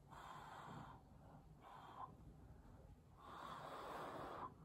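A person blowing puffs of air by mouth onto wet acrylic paint to push it across the surface, Dutch-pour style: three breathy blows, a short one near the middle and the longest near the end.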